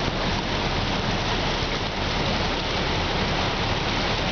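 Floodwater rushing and splashing against the side of a moving city bus as it wades through the flooded street: a steady hiss of churning water over the low hum of the bus.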